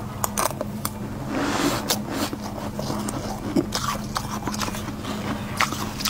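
Mouth crunching and chewing a spoonful of freezer frost in sharp, irregular crackles, with a metal spoon scraping frost off the freezer's walls near the end. A steady low hum runs underneath.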